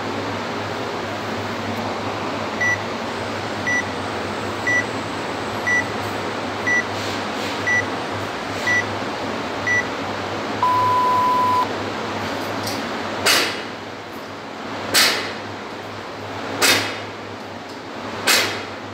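Workout timer app counting down: eight short high beeps one second apart, then one longer, lower start tone. Then come short loud whooshing sounds about every second and a half, over a steady background hiss.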